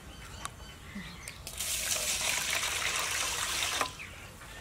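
Water poured from a plastic bowl into an aluminium bowl of seeds: a steady splashing pour lasting about two seconds, starting about one and a half seconds in.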